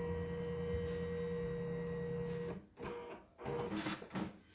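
Stepper motors of a CNY E960 embroidery machine's embroidery unit running, driving the hoop carriage across the bed with a steady whine, as in its calibration run once the unit is attached. The whine stops after about two and a half seconds, followed by a few short knocks.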